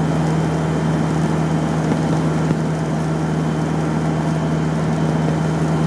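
Land Rover cruising at steady road speed, heard from inside the cab: a constant engine and road drone with a strong low hum and an even rush of tyre and wind noise, holding the same pitch throughout.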